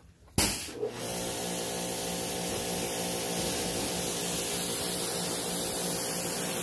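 A pressure washer kicks on abruptly about half a second in, then runs steadily: a motor-and-pump hum under the loud hiss of the water jet spraying onto a car hood.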